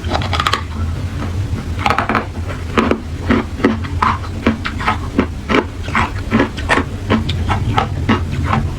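Hard clear ice being bitten and chewed: dense, irregular crunching and cracking, several crunches a second, over a steady low hum.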